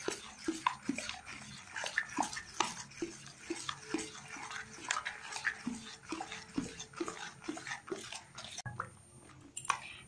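Thick, wet curd-and-semolina batter squelching and slapping as a hand beats it round a steel bowl, several squishes a second, with a brief pause near the end.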